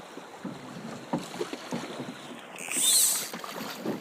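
Moving river water with light splashes and small knocks, and a brief loud hiss that swells and fades about three seconds in.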